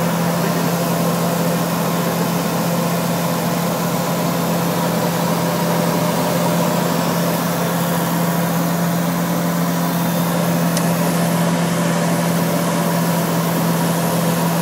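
The Rotax 914 turbocharged four-cylinder engine and propeller of an HK36 TTC Super Dimona motor glider running steadily in flight, heard from inside the cockpit as an even drone with a strong low hum.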